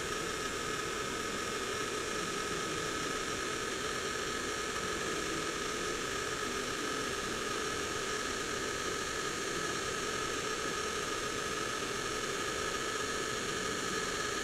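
Heat gun running steadily: a fan whir and hiss of air with a few constant tones in it, blowing hot air onto a circuit board to melt the solder under a surface-mount buck regulator chip so it can be lifted off.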